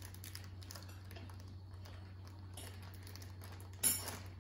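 Faint rustling of a plastic bag of shredded carrots being handled, then a single short, sharp dog bark near the end.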